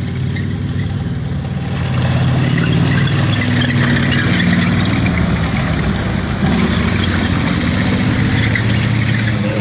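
M3 Stuart light tank driving past on its tracks with the engine running under load. The sound grows louder about two seconds in and stays steady.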